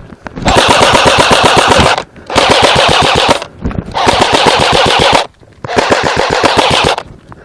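Airsoft gun firing on full auto in four long bursts of rapid shots, each lasting a little over a second, with short pauses between them.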